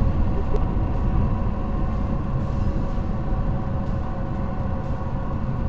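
A car driving on an unsealed gravel road, heard from inside the cabin: a steady low rumble of tyres and engine, with a faint steady hum over it.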